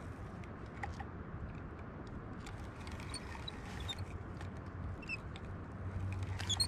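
A spinning rod and reel being handled while a fish bites: faint scattered clicks and small squeaks over a low steady rumble of wind and water. Near the end comes a sharper, louder click-squeak as the rod is swept up to set the hook.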